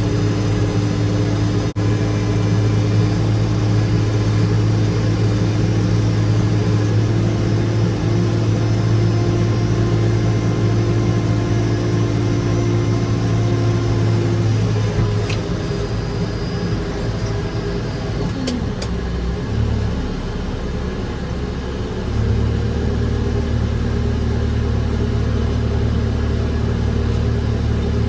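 Tractor engine running steadily. Its note sags and quiets from about halfway through, then picks back up strongly a few seconds before the end.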